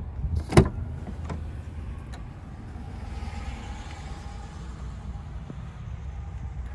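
A sharp click about half a second in as the Jeep Wrangler's swing-out tailgate latch releases, then a few lighter clicks over a steady low rumble.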